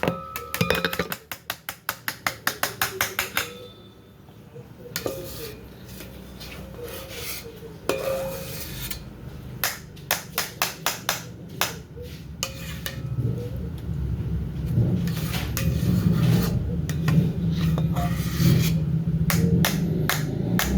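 A kitchen utensil knocking rapidly against a mixing bowl while a mixture is stirred, in quick even runs of about six or seven taps a second, three runs with pauses between them.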